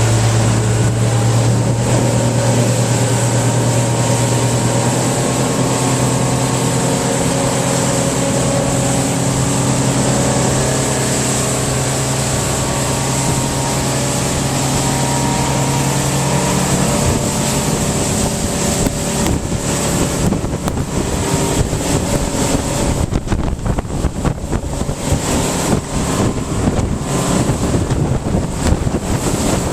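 A 1998 Bayliner 2655 cruiser's 5-liter engine running steadily under way, with wind buffeting the microphone. About two-thirds of the way through, the steady engine tone gives way to a choppier, uneven rush of wind and water.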